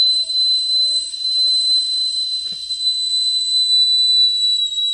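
A small red plastic whistle blown in one long, unbroken, high, steady note, held on a single breath for as long as the blower's lungs last.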